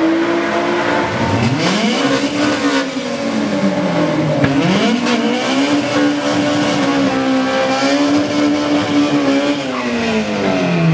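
Dodge Charger Police Package engine revving: the pitch drops and climbs, dips again, then is held high and steady for several seconds before falling away near the end.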